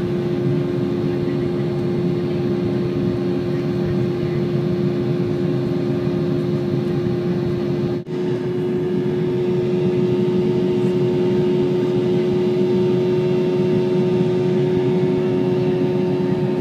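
Steady drone of an Embraer E190's GE CF34-10E turbofan engines heard inside the cabin, with a steady hum running through it and a brief dip about eight seconds in.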